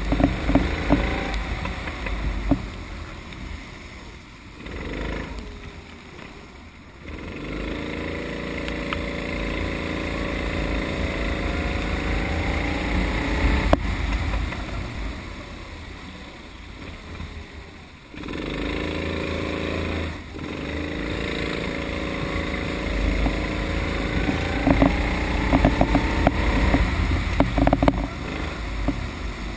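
Kart engine at full race use, its pitch climbing as it accelerates down the straights and falling away each time the throttle is lifted for a corner, several times over, with a steady low rumble underneath.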